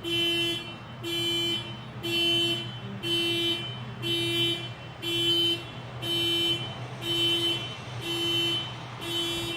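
Car alarm sounding its horn in a steady repeating pattern, about one honk a second, each about half a second long. The alarm keeps cycling, and the resident takes it for an alarm set too sensitive.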